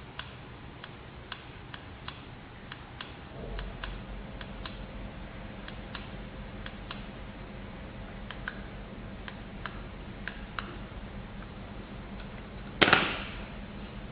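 Faint, irregular sharp clicks, about one or two a second, over a low steady hum, with one much louder sharp knock about thirteen seconds in.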